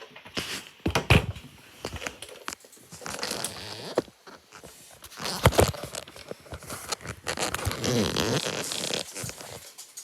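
A knife scraping and cutting into a bar of soap, in short rasping strokes with scattered crisp clicks. There are two sharper knocks, about a second in and around the middle.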